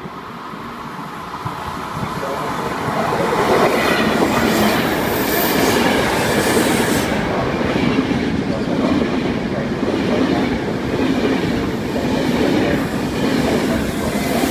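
Frecciabianca passenger train passing close by along the platform. The wheel and rail noise swells over the first three seconds or so, then stays loud and steady as the coaches go by.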